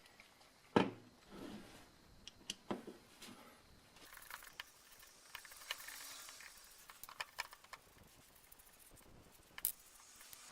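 Small hard parts being handled at a workbench: one sharp knock about a second in, scattered light clicks and taps, and a stretch of scraping or rubbing in the middle.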